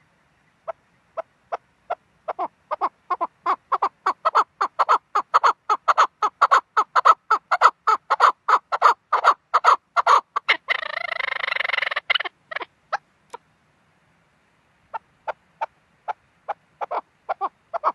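Chukar partridge calling: a series of short clipped chuck notes that quickens and grows louder, the species' rally call. About eleven seconds in, a second of harsh rasping noise breaks in. A few spaced notes and a pause follow before the chucking starts again near the end.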